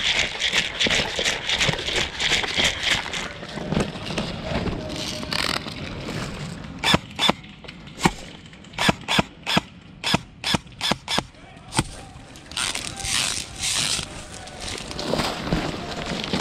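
Airsoft gun fired in semi-automatic, about a dozen sharp single shots a few tenths of a second apart, midway through. Rustling movement noise comes before and after.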